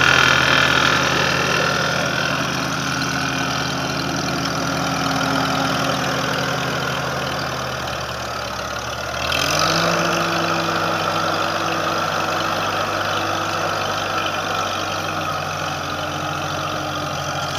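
Farmall H tractor's four-cylinder gasoline engine idling steadily. About nine seconds in, the engine speed steps up, and it runs on evenly at the faster speed.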